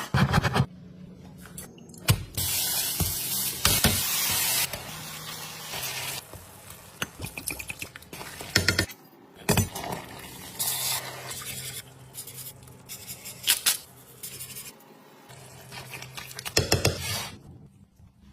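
Kitchen cooking sounds: utensils clicking and clattering against pots and dishes, with a stretch of loud hissing from about two seconds in to nearly five.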